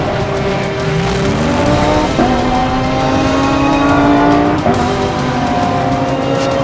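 Audi R8 LMS ultra GT3 race car's V10 engine running hard at high revs. The note climbs over the first two seconds, then steps abruptly in pitch about two and four and a half seconds in at gear changes.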